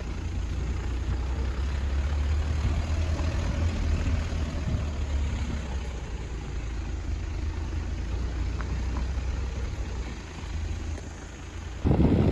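Car driving along an unpaved dirt road: a steady low rumble of engine and tyres with a hiss of passing air. Near the end it changes abruptly to louder wind buffeting the microphone.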